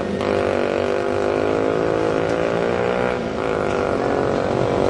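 An engine running, its pitch slowly climbing and falling, with a short break just after the start and another about three seconds in.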